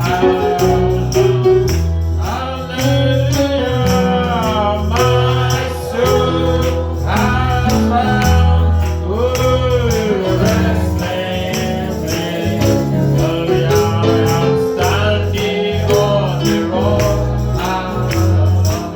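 Gospel music with a lead voice singing over a strong bass line, with tambourine-like percussion keeping a steady beat.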